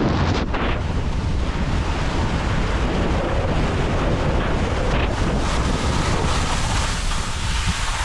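Wind buffeting the microphone of a moving skier's action camera, mixed with the steady hiss of skis sliding over soft spring corn snow.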